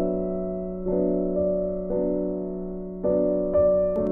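Background piano music: slow notes and chords struck about once a second, each fading away over a steady low held tone.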